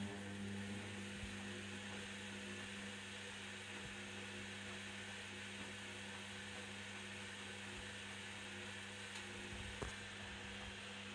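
Candy Activa Smart washing machine running with a steady hum and a hiss, with a few faint knocks, for about eleven seconds; it starts and stops abruptly.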